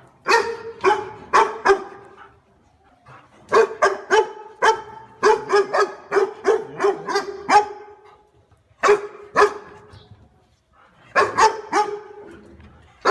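A dog barking in runs of short, sharp barks with pauses between: a few in the first two seconds, a long run of about a dozen from about three and a half to seven and a half seconds, two near nine seconds, and another run from about eleven seconds.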